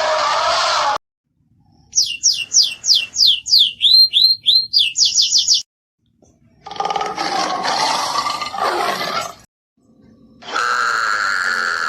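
A sequence of separate animal calls: the tail of a loud call at the start, then a bird's rapid run of high, quick chirps from about two to five and a half seconds in, then a harsh, noisy call lasting about three seconds, and near the end another loud call.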